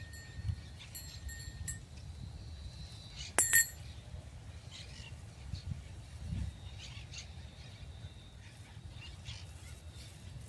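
Outdoor ambience with faint high bird calls over a steady low rumble, and one sharp metallic click about three and a half seconds in.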